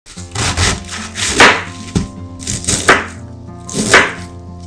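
Kitchen knife chopping cabbage on a wooden cutting board, one cut roughly every second, over steady background music.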